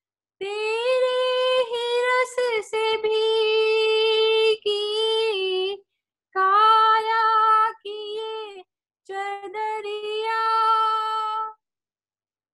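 A woman singing a Hindi devotional bhajan unaccompanied, holding long drawn-out notes over about four phrases, with dead silence between them.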